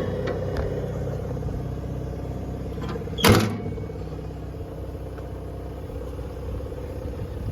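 The JCB JS160 excavator's diesel engine idles steadily, with one short, loud clunk about three seconds in as a compartment door on the machine is opened.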